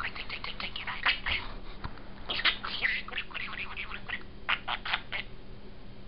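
Male budgerigar chattering to itself in a contented mood: quick runs of scratchy, high-pitched warbles and clicks, broken by short pauses.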